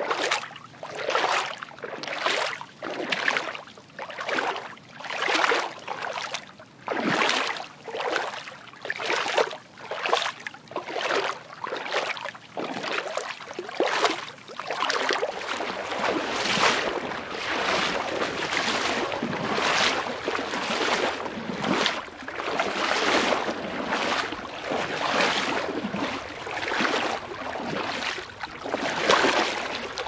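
Footsteps wading through water, one splashing step about every second. From about halfway the steps come quicker and the sloshing runs together almost without a break.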